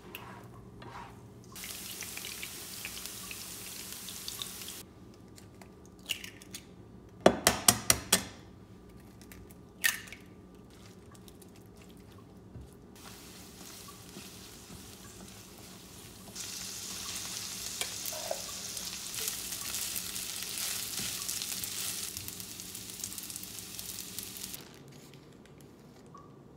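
Egg fried rice stir-frying in a nonstick pan: hot oil sizzles as chopped green onions go in. A quick run of five sharp knocks comes about seven seconds in, then a louder, longer sizzle as eggs, shrimp and rice fry under a spatula.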